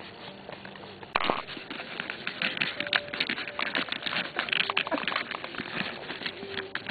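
Newborn bearded collie puppies nursing close up: a dense, irregular run of wet clicking and smacking suckling sounds that starts about a second in, with a few faint, short squeaks.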